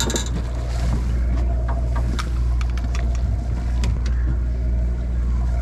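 Steady low drone of a sportfishing boat's engine, with scattered short clicks and knocks over it.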